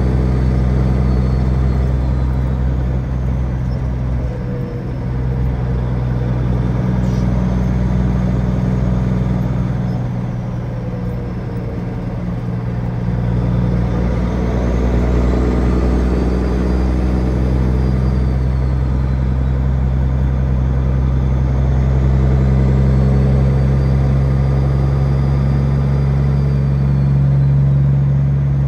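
Peterbilt 379 truck's diesel engine running steadily on the road, a low drone whose pitch and loudness shift a few times.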